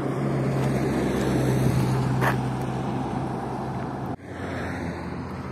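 Road traffic: a motor vehicle's steady engine hum with tyre and road noise. About four seconds in it cuts off abruptly, and quieter traffic noise follows.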